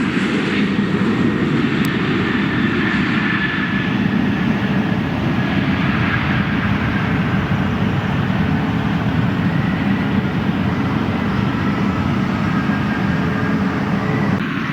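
Airliner engines running loudly and steadily: a deep rumble with a faint whine that drifts slightly in pitch.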